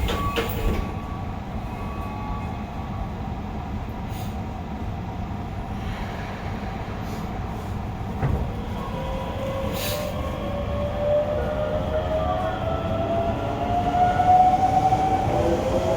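Hokuso 7300-series train (car 7301) with GTO-VVVF traction inverter, heard from inside the car. A steady rumble gives way about halfway through to the inverter's rising whine as the train accelerates. Near the end the whine drops and starts climbing again.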